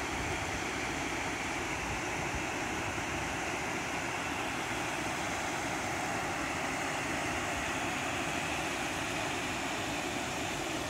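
Steady rushing of river water spilling over a low concrete weir.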